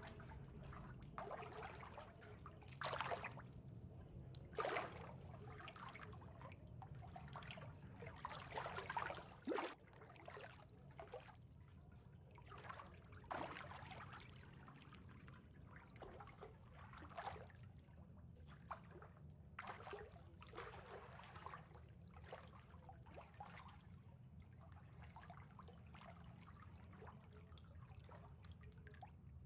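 Swimming-pool water gently lapping and trickling, quiet, with a steady low rumble underneath. A few louder splashes come in the first ten seconds.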